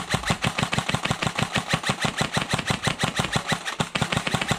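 Airsoft rifle firing on full auto: a rapid, evenly spaced rattle of shots that keeps going without a break.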